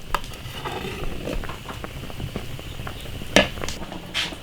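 Water simmering in a wok while softshell turtle pieces blanch, with light scattered clicks and one sharper tap about three and a half seconds in.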